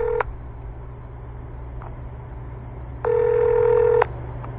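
Telephone ringback tone heard down the line while an outgoing call rings unanswered. The tail of one ring sounds at the start, and a second ring of about a second comes about three seconds in, over a steady low line hum.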